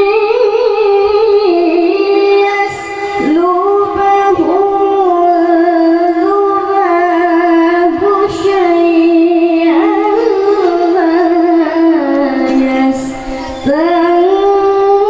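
A boy reciting the Quran in the melodic tilawah style into a microphone, holding long ornamented notes that wind up and down in pitch, with short pauses for breath about three and thirteen and a half seconds in.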